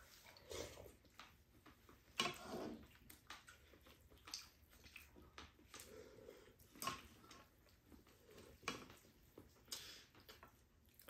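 Faint eating sounds from two people eating glass noodles with chicken: irregular wet mouth smacks, slurps and chewing, with occasional light clicks of chopsticks in the pan.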